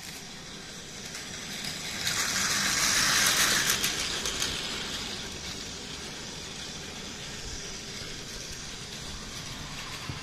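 Battery-powered Plarail toy train, a Tobu 70090 series THLiner model, running on plastic track: a steady whirring gear motor with a fine rattle of wheels on the rails. It gets much louder about two seconds in as it passes close, then falls back to a steady run as it moves away.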